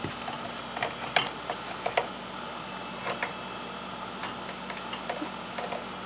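Scattered light clicks and taps of a cat nosing and mouthing metal cutlery in a plastic dish rack. A faint steady low hum comes in about two seconds in.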